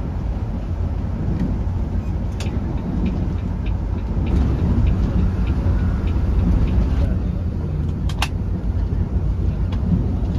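Volvo B11R coach with its rear-mounted 11-litre six-cylinder diesel, heard from inside the cabin while cruising on the road. There is a steady low rumble of engine and tyres, light ticks and rattles, and a sharper click about eight seconds in.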